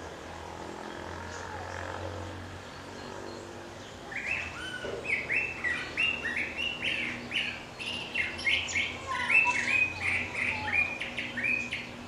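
A thrasher singing: after a few quiet seconds, a long, unbroken run of quick, varied whistled phrases begins about four seconds in and carries on until near the end.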